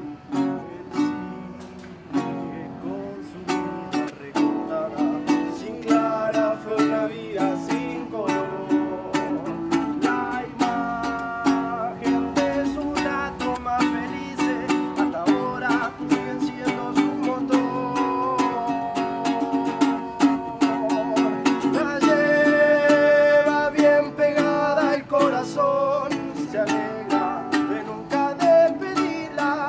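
Acoustic guitar strummed in a steady rhythm, with a man's voice singing a melody over it, strongest about two thirds of the way through.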